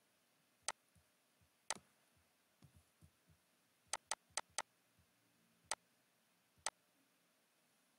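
Computer mouse button clicking: eight sharp single clicks, four of them in quick succession about four seconds in.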